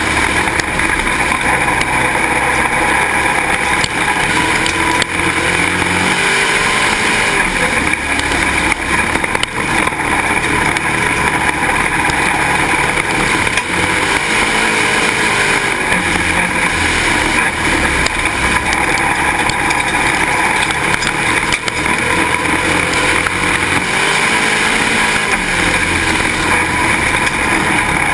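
A dirt-track Pro Stock race car's engine running hard at racing speed under a heavy rushing noise, its pitch rising and falling over and over.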